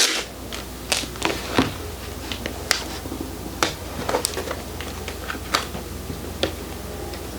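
A clear plastic sole protector sheet handled and pressed onto a sneaker's rubber sole, giving scattered short clicks and crackles at irregular intervals over a low steady hum.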